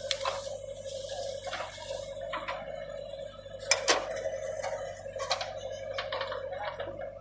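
JCB digger working: a steady machine whine with irregular metallic clanks and knocks, the loudest two close together about four seconds in.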